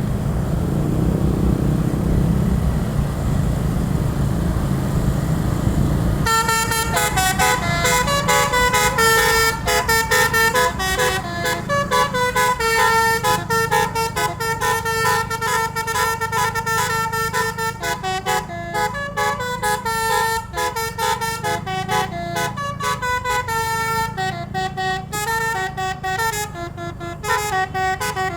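A bus's telolet horn, the multi-tone musical air horn, playing a long, fast melody of quickly changing notes. It starts about six seconds in, after a low rumble, and the rumble carries on underneath.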